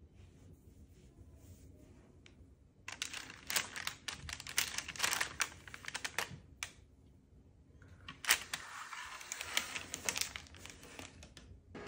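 Crisp rustling and clicking as the paper-lined baking tray of skewers is handled and slid along, in two spells of a few seconds each.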